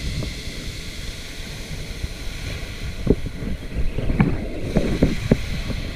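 Wind buffeting the microphone over the wash of small waves breaking on a pebble beach. A few short knocks come in the second half.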